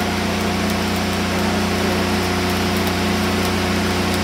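Stick welding arc crackling steadily as a weld is run on structural steel, over a steady engine-like hum.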